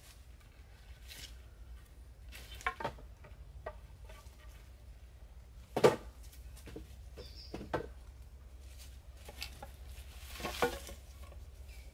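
Intermittent knocks and light clatter of objects being handled, with the loudest knock about six seconds in.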